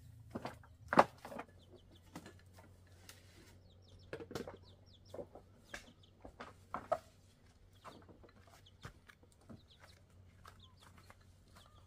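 Chickens clucking in short, scattered calls, the loudest about a second in, among light clicks and knocks.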